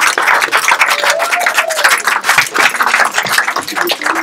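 A small crowd applauding with dense, irregular hand claps, and a voice or two calling out among them.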